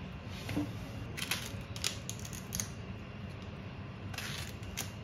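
Ripe bananas being peeled: several short, irregularly spaced rustling scrapes of banana skin being pulled away.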